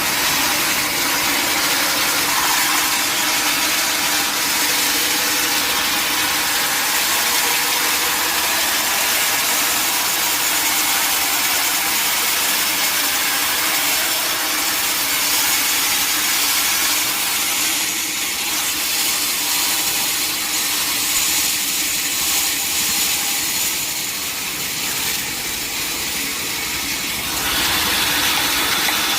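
Sawmill saw running and cutting through a mahogany log: a loud, steady hiss of machine noise whose tone shifts about two-thirds of the way through and again near the end.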